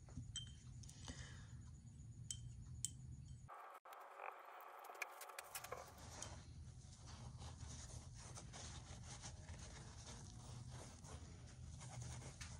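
Faint clicks of a small paintbrush against a glass jar of acetone, then soft rustling and scratching as the brush is wiped on a paper towel, over a low steady hum.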